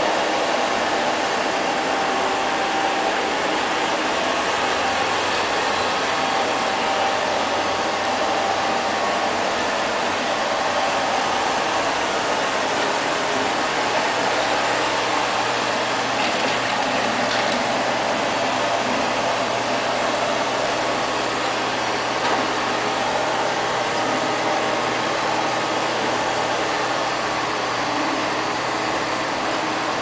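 LL-306 (X500) robot vacuum cleaner running: a steady whir of its suction motor and brushes.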